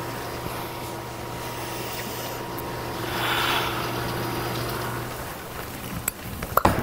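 Steady bowling-centre ambience: a low hum and a wash of room noise, swelling briefly about halfway. Near the end come a few sharp knocks as the bowler slides through her delivery and the ball is laid onto the lane.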